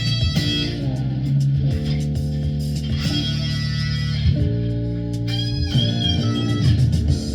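Electric guitar improvising over a rock backing track, playing mostly long held notes.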